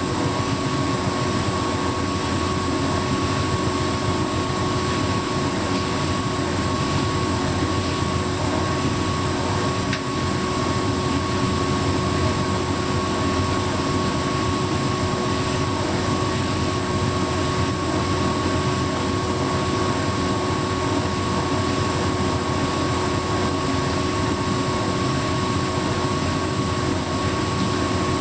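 Hotpoint heat pump tumble dryer running steadily: an even whirring hum with a constant whine that does not change. It is in what the owner takes for its quieter 'silencer' running phase.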